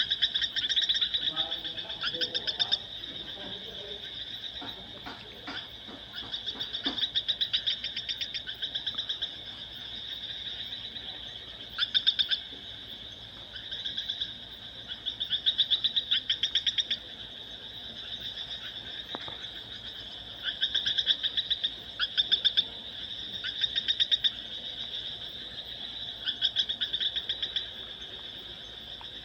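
An animal's rapid pulsed trills, each burst lasting one to two seconds and repeating every few seconds, high-pitched with a fast rattling pulse.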